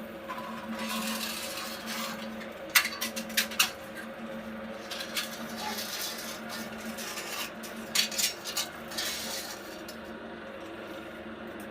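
Scattered clinks and light clatter of small hard objects, in small clusters, over a steady low hum.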